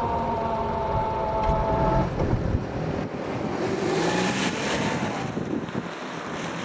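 ČD class 844 RegioShark diesel railcar passing over a level crossing: a whine with several pitches, falling slightly in pitch, runs over a low rumble for about two seconds and then stops. A rushing, wind-like noise follows and fades near the end.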